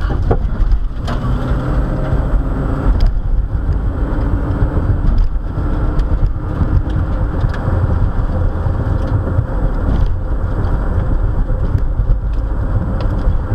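Inside a moving car's cabin: a steady low road and tyre rumble with a faint engine hum, heard as the car drives along at road speed.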